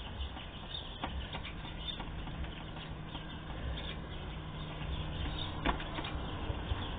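Homemade slime being mixed and worked after activator is added: soft, irregular sticky clicks and crackles with a sharper click near the end, over a low steady hum.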